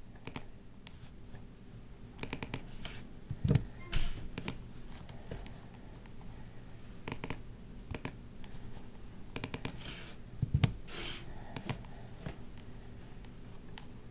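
Irregular key taps and clicks from a Microsoft Wedge Bluetooth keyboard and a Microsoft mouse, with a few louder knocks about three and a half, four and ten and a half seconds in.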